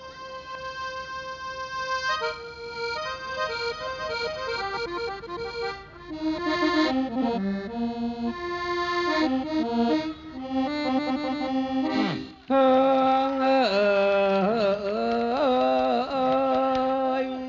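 Piano accordion playing a mor lam-style melody, single notes stepping up and down. About twelve seconds in, a male voice comes in over it, singing a loud, long, wavering held note.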